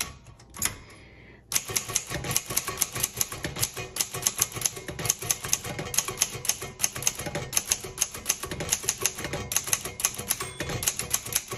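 1956 Underwood Universal portable manual typewriter being typed on quickly: a couple of light clicks, then from about a second and a half in a steady run of typebar strikes, several a second.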